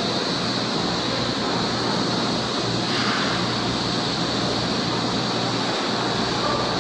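CNC glass-working machine running steadily, a constant hiss with a higher whine and a low hum underneath.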